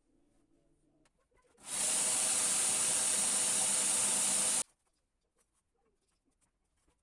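A loud hissing rush lasting about three seconds, starting about a second and a half in and cutting off abruptly.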